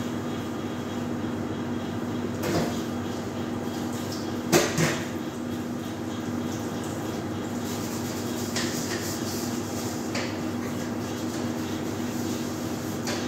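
Steady hum of kitchen equipment with a few sharp knocks and clatters of kitchenware, the loudest a double knock about four and a half seconds in.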